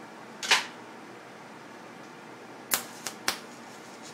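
A few sharp clicks of metal being handled at a TIG welding table: one about half a second in, then three in quick succession near three seconds, over a steady background hiss.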